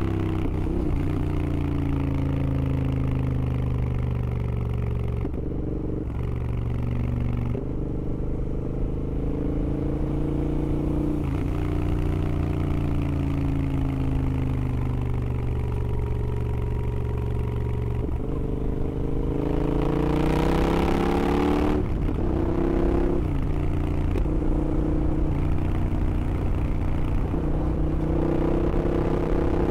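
Royal Enfield Interceptor's 865cc big-bore parallel-twin running through high-flow headers and mufflers under way, its note sliding up and down with several abrupt jumps in pitch. About two-thirds of the way through the revs climb with a brief rush of noise.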